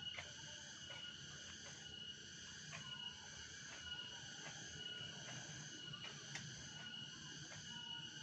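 Insect chorus: steady, high-pitched chirring in several layered tones, with scattered faint clicks throughout.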